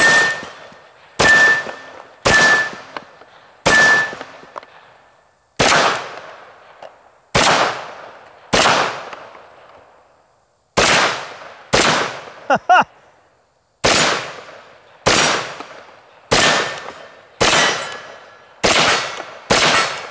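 Auto Ordnance M1 Carbine Paratrooper, a semi-automatic .30 Carbine rifle, fired about fifteen times, a second or two apart, each shot with a long echoing tail. Several of the early shots are followed by the brief ring of a steel target being hit.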